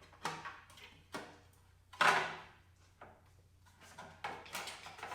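Hard parts and tools being handled on a go-kart: a series of light knocks and clicks, with one louder knock about two seconds in.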